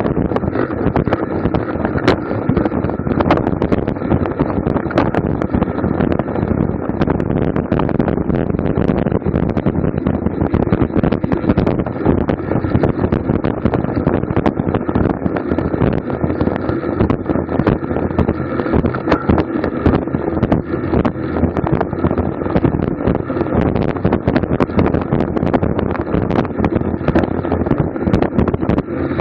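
Wind rushing over the microphone of a camera mounted on a racing bicycle at race speed. The rush is steady and loud, with constant quick clicks and knocks mixed in.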